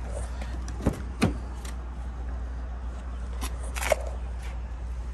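A few short clicks and knocks as the rear passenger door of a 2019 Volkswagen Golf is opened by hand, the sharpest click about four seconds in, over a steady low rumble.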